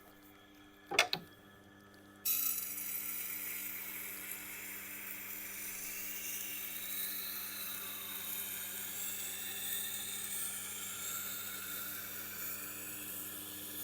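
A powered sharpening wheel's motor hums steadily, with two sharp knocks about a second in. From about two seconds in, the steel edge of a Japanese bunka knife is held against the spinning grinding wheel, giving a steady high hiss of metal being ground.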